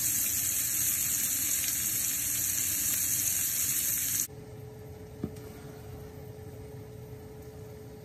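Pork chops sizzling hard in butter and fat in a skillet, one held on its fatty edge with tongs to render the fat down. The sizzle cuts off suddenly about four seconds in, leaving a quiet steady hum and a single tap.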